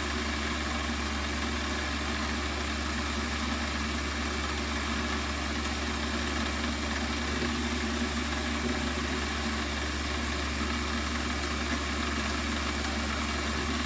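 Warco WM180 bench lathe running steadily at about 950 RPM, turning a center drill in its headstock chuck as it spots a hole in an aluminium block. The machine hum stays even throughout.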